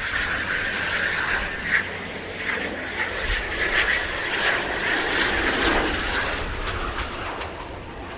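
Military aircraft engine noise: a steady loud rush with a high whine, easing off over the last couple of seconds.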